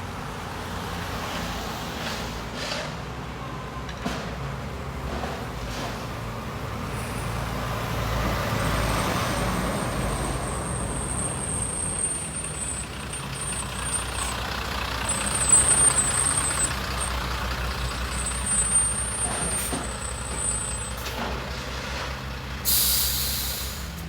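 Heavy vehicle's engine running steadily under a hissing background, with a faint high whistle coming and going. A short, sharp hiss like an air-brake release near the end.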